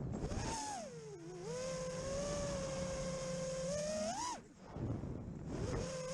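FPV quadcopter's brushless motors whining, the pitch swinging with the throttle. It falls about a second in and holds steady, then climbs sharply just after four seconds before cutting back briefly, and rises again near the end.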